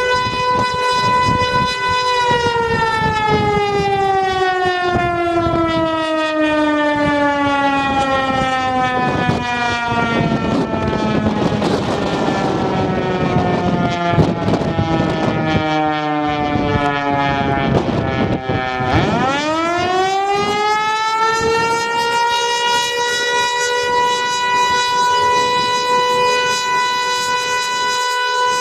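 Outdoor warning siren under test. It holds a steady tone, then about two seconds in its pitch slowly falls for some seventeen seconds. Near the last third it rises quickly back up to the steady tone and holds there.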